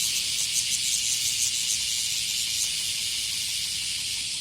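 Cicadas buzzing: a dense, high-pitched hiss that pulses rapidly for the first two-thirds or so, then runs on smoother.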